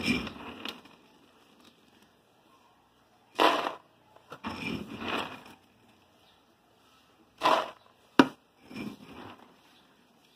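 Dry dog food being scooped and poured in several short noisy bursts, with one sharp knock about eight seconds in.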